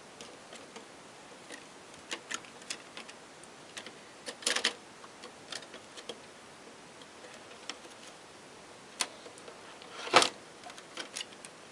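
Scattered light clicks and taps of plastic parts being handled while a TV is taken apart, with two louder clacks about four and a half and ten seconds in.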